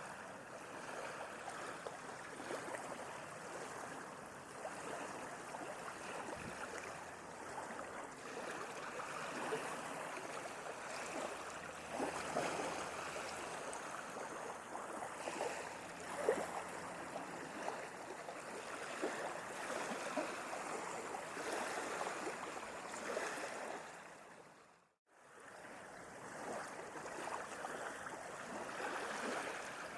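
Sea water lapping and washing, a steady wash full of small splashes and gurgles. About 25 s in it fades out to a moment of silence, then fades back in.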